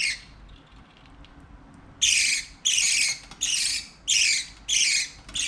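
Pet parakeet giving loud, harsh repeated calls: one at the very start, then after a short lull a steady run of about six raspy calls, roughly one and a half per second, each sweeping down in pitch.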